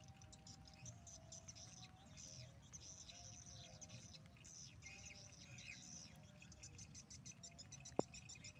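Faint, rapid chirping and clicky twittering of swiftlets around a swiftlet house. A single sharp click comes near the end.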